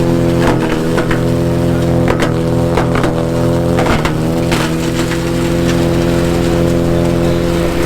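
Honda-engined branch chipper running steadily while branches are fed in. Sharp cracks and splintering come in several bursts over the first four and a half seconds, and the engine pitch dips slightly under the load. It then runs on evenly.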